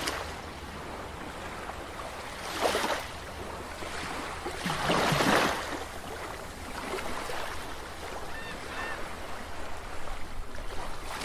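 Underwater-style sound effect: a steady watery rush that swells into two whooshes, about two and a half and five seconds in, with a couple of faint short blips near the end.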